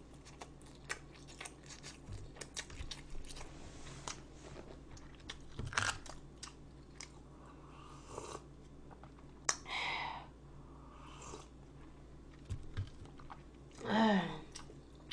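Close-miked chewing and crunching of food, with scattered small mouth clicks and smacks. A brief falling vocal sound comes near the end.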